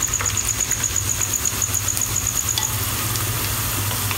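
Sliced onions sizzling and crackling in hot oil in a non-stick pan just after going in, with a steady low hum underneath.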